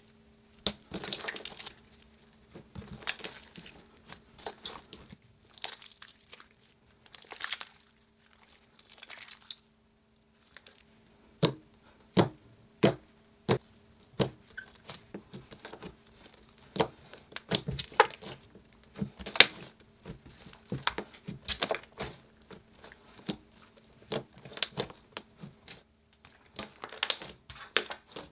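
Very thick, dense slime, made largely of hair conditioner, being stretched, squeezed and pressed by hand: sticky squishing and tearing as it rips apart, with many irregular sharp clicks and small pops.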